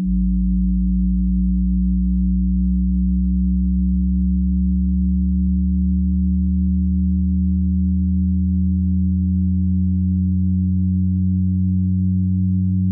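Steady electronic drone of several layered low, pure tones. The lowest tones change right at the start and shift again gradually a few seconds before the end.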